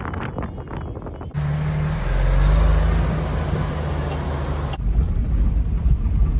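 A car driving, with steady engine and road noise and a low rumble; the noise changes character abruptly about a second and a half in and again near the end.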